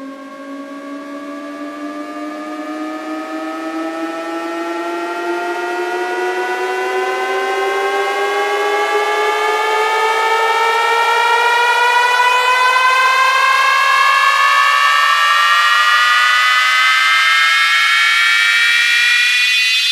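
Synthesized riser effect in a DJ sound-check track: several layered tones gliding slowly upward in pitch together, steadily getting louder as a build-up.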